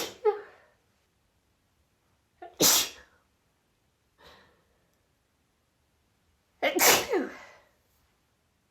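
A woman sneezing repeatedly in a sneezing fit: three loud sneezes about three to four seconds apart, the last one longer.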